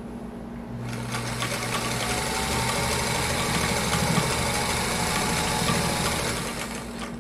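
Vintage Singer electric sewing machine running, its belt-driven motor turning the needle as it stitches a quilting line through the layers of a quilt. It starts about a second in, runs steadily, and stops near the end.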